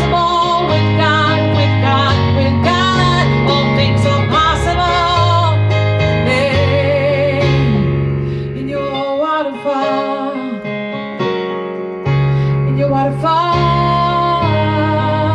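Worship song: keyboard accompaniment with held bass notes under a woman's voice singing a melody with vibrato. The bass drops out for a few seconds around the middle, then returns.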